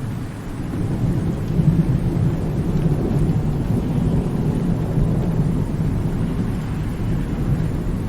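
A long rolling rumble of thunder, starting suddenly and swelling over the first couple of seconds, then rumbling on steadily over the hiss of rain.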